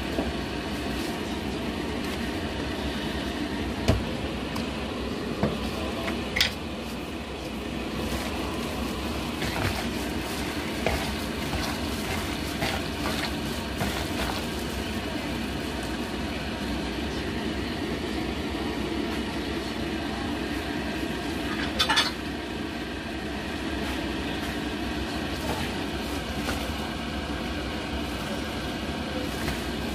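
A plastic-gloved hand mixing cucumber strips by hand in a plastic bowl of red pepper-paste seasoning: wet squelching and rustling of the glove against the sauce, over a steady background noise. A few sharp clinks break in, one at about 4 seconds, two around 6 seconds and one louder at about 22 seconds.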